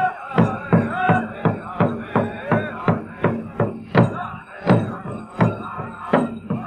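Powwow-style big drum beaten in a steady, even beat by the seated drummers, about three strokes a second, with voices singing over it: an owl dance (friendship dance) song.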